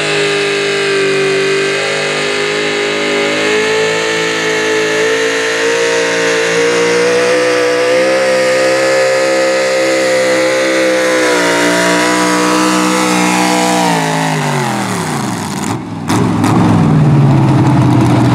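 Pro stock mini pulling truck's engine held at high revs through open exhaust stacks as it drags the sled, its pitch steady with a slight rise. The revs then fall away steeply as the truck slows to a stop. After a brief break near the end, a lower steady engine sound follows.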